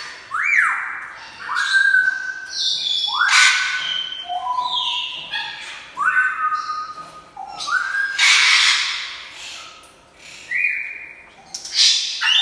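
African grey parrot calling over and over: clear whistles that sweep sharply up and then hold a steady note, mixed with harsh squawks, one call every half second to a second. The loudest and longest squawk comes about two-thirds of the way through.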